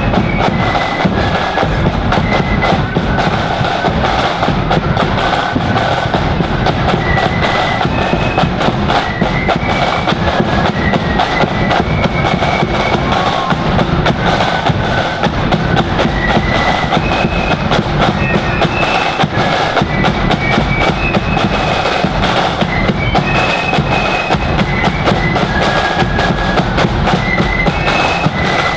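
A marching flute band playing a tune, with the high flute melody carried over continuous snare drum rolls and bass drum beats.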